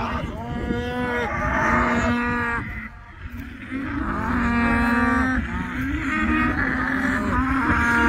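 Several cattle mooing, calls overlapping one after another as the herd moves, with a brief lull about three seconds in.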